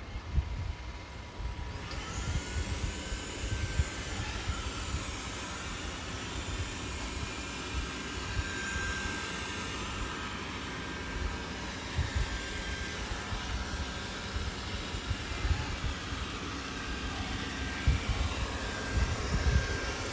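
Dreame L10S Ultra robot vacuum's suction fan spinning up about two seconds in with a rising whine, then running with a steady hiss and a faint whine, over uneven low rumbling.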